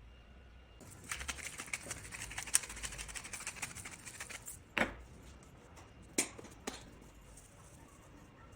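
Rapid crackling and clicking of steaks cooking on a hot grill for a few seconds, then three sharp knocks.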